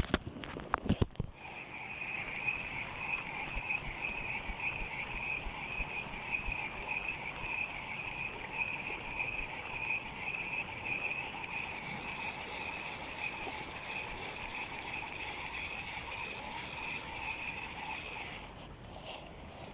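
Spinning fishing reel being cranked, its gears and line roller giving a steady mechanical whirr that starts about a second in and stops shortly before the end. A few sharp knocks come just before the whirr starts.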